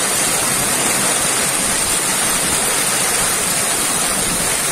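Heavy wind-driven rain pouring onto a road, a steady, loud hiss with no break.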